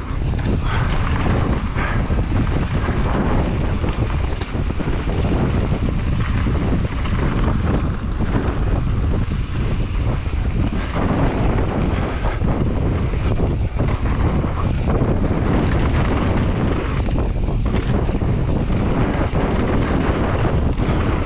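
Wind rushing over the camera microphone of a downhill mountain bike at speed, with the rumble and irregular knocks of the bike rolling over rough trail.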